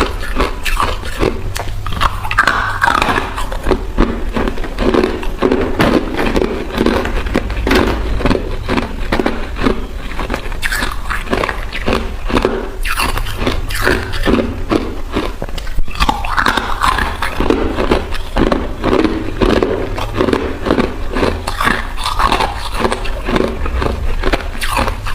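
Ice being bitten and chewed close to the microphone: a continuous run of sharp crunches and cracks, many a second, over a low steady hum.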